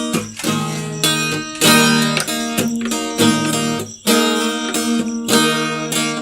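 Acoustic guitar strumming chords in an instrumental break of a song, with a new strummed chord about every second and a half.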